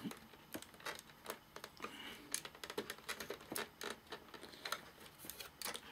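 Irregular small clicks and taps of hands prising at the plastic and board parts inside a Sansui AU-X111 amplifier during disassembly.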